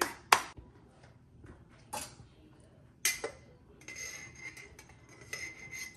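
A metal spoon clinking against a glass jar of tomato paste, sharpest about a third of a second in, then scraping paste from inside the jar with a steady, high-pitched scraping sound over the last two seconds or so.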